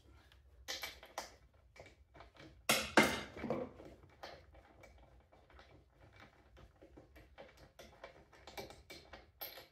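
Irregular light clicks and taps of hand tools and small parts being handled while swapping a lawn mower's spark plug, with a louder clatter about three seconds in.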